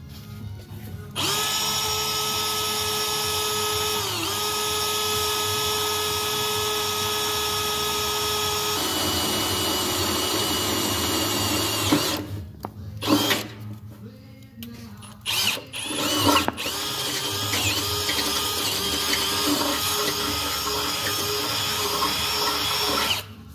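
Cordless drill boring into the sheet-metal body panel of a Toro Z Master mower. The motor runs with a steady whine for about ten seconds and dips briefly in pitch as the bit loads up. After a few seconds of short stop-start bursts it runs steadily again, wavering a little.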